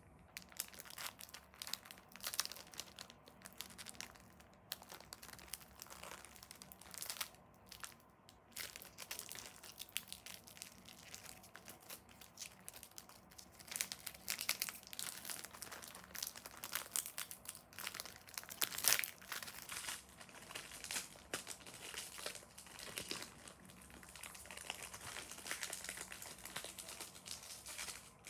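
Foil wrapper of a Pokémon Cosmic Eclipse booster pack crinkling and tearing as it is pulled open and handled, in irregular crackles, loudest about two-thirds of the way through.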